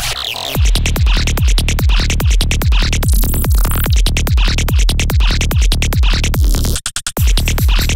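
Electronic dance music at about 145 BPM: analog modular synth loops over a four-on-the-floor kick drum, which comes in about half a second in and drops out briefly near the end.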